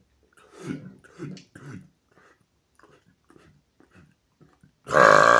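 A man's few short throaty sounds and small mouth clicks, then near the end a loud, long burp begins, let out freely 'like an exhaust'.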